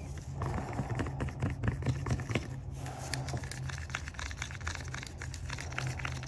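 Wooden stir stick scraping and clicking against the inside of a small plastic cup, stirring pigment into epoxy resin. A steady low hum runs underneath.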